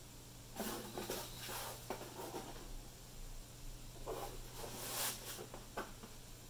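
Hands handling a computer monitor's plastic casing: scattered rustling and scraping, with a light click near the end, over a steady low hum.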